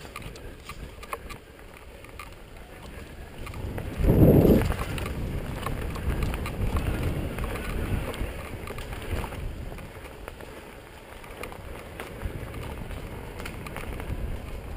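Mountain bike riding fast over a dirt forest trail: the tyres rumble over the ground and the bike rattles and clicks over bumps, with wind buffeting the camera microphone. There is a loud low thump about four seconds in.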